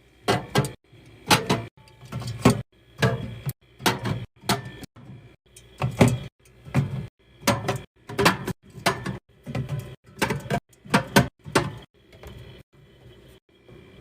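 Items being placed into a mini fridge during restocking: a run of knocks, clacks and clatter about once or twice a second, each with a dull thud, thinning to quieter handling near the end.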